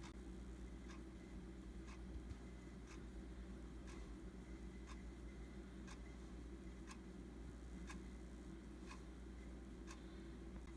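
Faint, evenly spaced ticks, about one a second, over a low steady hum.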